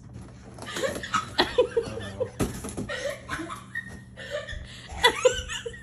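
A person laughing off-camera in short bursts of chuckles, strongest about a second and a half in and again near the end.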